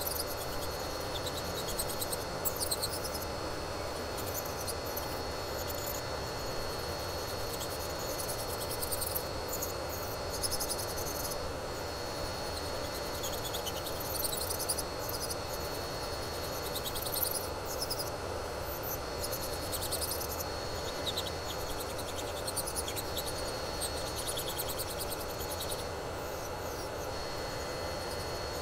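Electric nail drill whining as its bit grinds gel off fingernails, with scratchy grinding coming and going, over the fan hum of a nail dust collector.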